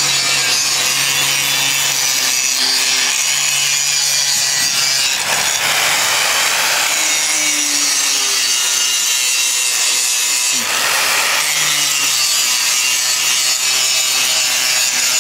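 Electric angle grinder with its disc biting into a piece of rusted metal: a steady, loud, high-pitched grinding hiss. It turns coarser twice, about five and ten and a half seconds in, as the disc bears down harder.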